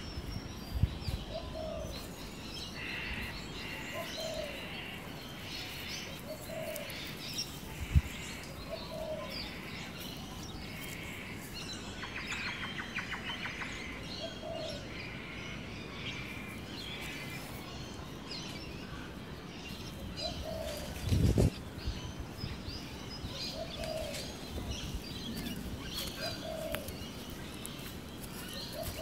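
Wild birds calling: a short low note repeated every second or two, over higher chirps and a rattling trill about twelve seconds in. Two dull thumps, one about eight seconds in and a louder one a little after twenty seconds.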